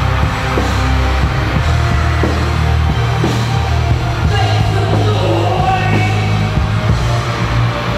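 Loud live concert music with heavy bass, and a singer's voice over it in places.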